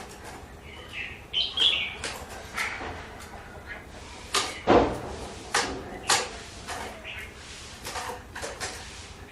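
Hwamei (Chinese melodious laughingthrush) giving short chirping calls amid a string of sharp clicks and knocks, with one loud thump about five seconds in.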